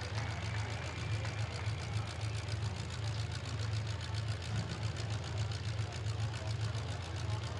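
Demolition derby car engines idling, steady and low-pitched, while the race is stopped.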